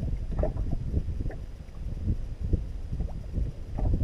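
Wind buffeting the microphone over an uneven low rumble, with small irregular splashes of water slapping against the side of a boat.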